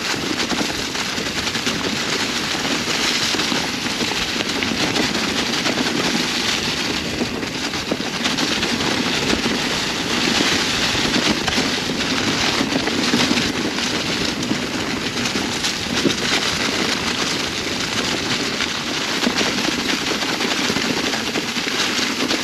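Mountain bike rolling fast down a rocky trail covered in dry fall leaves: a continuous dense crackle and clatter of the tyres through the leaves and over rocks.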